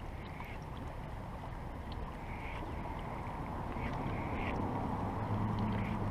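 Water lapping against the rocks at the shoreline, with a low steady hum coming in near the end.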